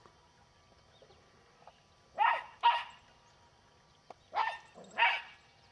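A dog barking: two pairs of short barks, about two seconds apart.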